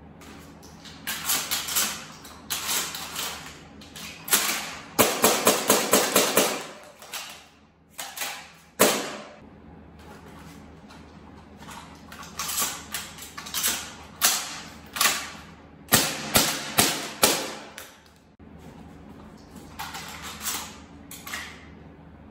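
Repeated sharp plastic-and-metal clacks and rattles from a Maruzen airsoft shotgun being handled, its action worked and its shells loaded. They come in several bursts, one a quick run of about six clacks a second.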